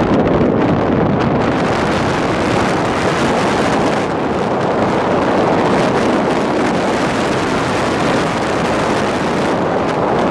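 Wind buffeting the microphone of a camera in a moving vehicle, mixed with road and engine noise: a loud, steady rush.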